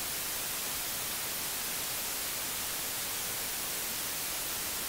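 Steady hiss of television static, an even white-noise rush heavier in the high range.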